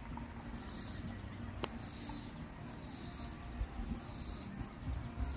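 An insect calling outdoors in a steady rhythm of short, high-pitched rasps, about one a second, over a low rumble.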